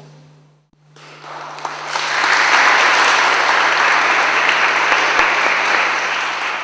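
Audience applauding: the clapping starts about a second in, swells to full strength within another second, keeps going, and eases off near the end.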